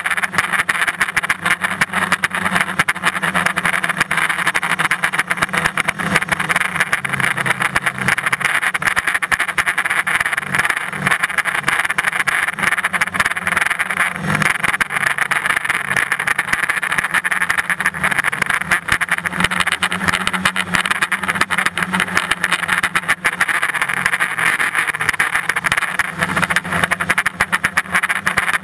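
Steady buzz of a small camera drone's electric motors and propellers, heard from the camera it carries, with a low hum that wavers slightly in pitch as it flies.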